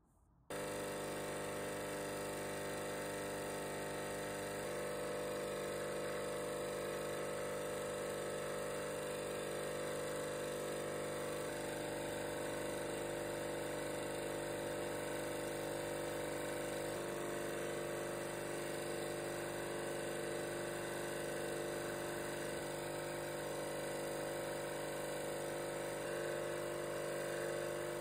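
Bench grinder running at a steady hum with a buffing wheel spinning, used to buff a wooden knife handle to a wax shine. The sound starts suddenly about half a second in.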